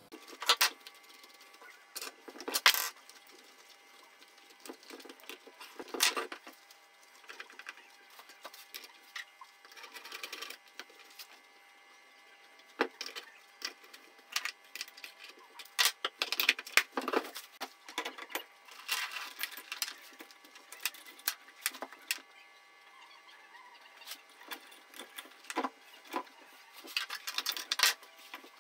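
Intermittent clicks, knocks and short rattles of metal and plastic parts as a Timberwolf 18-inch chainsaw is put back together by hand, its guide bar and chain being refitted, with quiet stretches in between.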